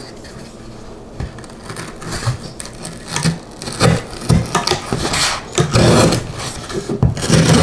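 A folding knife blade sawing and pushing through corrugated cardboard in a series of rasping cuts, roughly one stroke a second, getting louder after the first couple of seconds.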